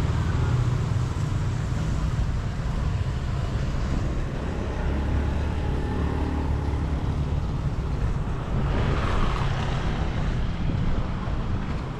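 Road traffic noise: vehicles running past in a steady low rumble, with a louder swell of hiss about nine seconds in.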